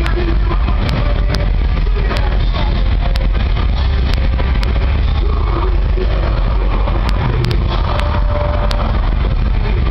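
Loud, steady, overloaded low rumble of an outdoor festival ground, with crowd chatter mixed in and a few sharp clicks.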